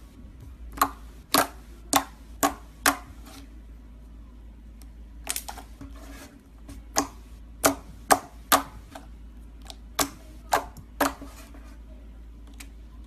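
Slime being pressed and worked by hand, giving about a dozen sharp clicks and pops from trapped air in irregular clusters, with a steady low hum underneath.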